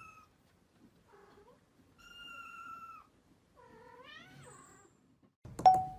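Kittens meowing: thin, high meows, a steady one about two seconds in and one rising in pitch near four seconds. Loud chime-like dings start just before the end.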